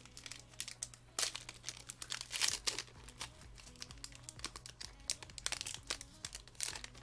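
Foil booster pack wrapper crinkling in a series of sharp rustles as it is handled and torn open, loudest about two and a half seconds in.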